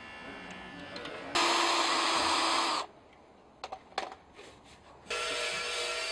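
A handheld power tool runs in one loud burst of about a second and a half, then stops abruptly. A few sharp knocks of handling follow. Another steady machine-like noise with a couple of held tones starts near the end.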